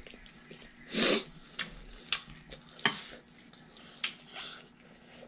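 White ceramic bowls and plates being handled on a table: a short noisy sound about a second in, then several sharp clicks and knocks of crockery.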